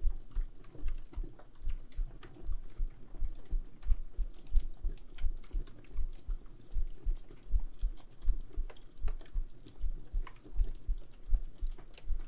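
Heartbeat thumping steadily in lub-dub pairs, about one beat a second, under the sharp pops and crackles of a wood fire burning in a fireplace.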